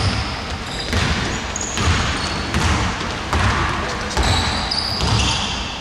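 A basketball dribbled on a hardwood court, with a steady bounce roughly once a second. Sneakers squeak briefly and high on the wooden floor between the bounces.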